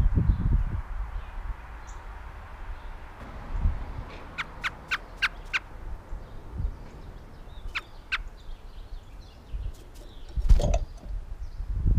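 A bird calling: a quick run of about six short, sharp notes, then two more a couple of seconds later, and another few near the end. Low thumping rumble at the start and near the end.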